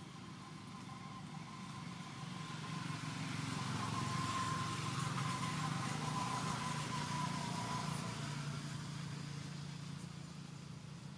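A motor vehicle passes by: its engine sound grows louder, peaks about halfway through and fades away, with a steady low hum and a faint whine that drops slightly in pitch as it goes.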